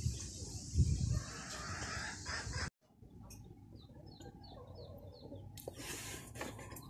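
Chickens clucking and peeping, with a row of short, high, falling peeps about halfway through. A couple of low thumps on the microphone in the first second or so, and the sound cuts out abruptly about a third of the way in.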